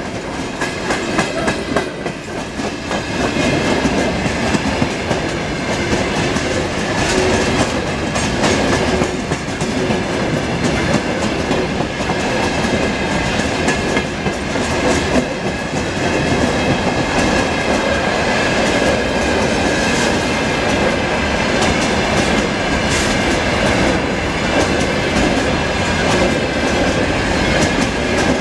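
Freight train wagons rolling past close by: a steady loud rumble of steel wheels with rapid clickety-clack as the bogies cross the rail joints, and a thin steady high ringing tone over it.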